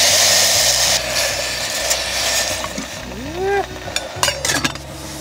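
Asari clams hissing in a hot stainless pot on a gas stove, loudest in the first second and then fading, followed by a few sharp clicks of handling near the end. Background music with a bass line runs underneath.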